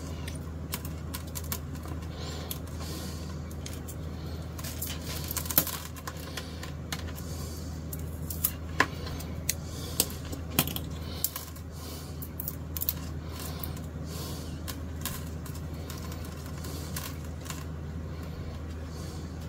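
A coil of white plastic guitar binding strip being uncoiled and handled, giving scattered small clicks and taps of the plastic, with a few sharper ticks between about five and eleven seconds in. A steady low hum runs underneath.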